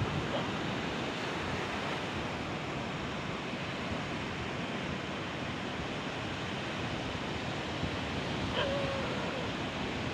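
Heavy ocean surf washing and breaking steadily, with wind buffeting the microphone.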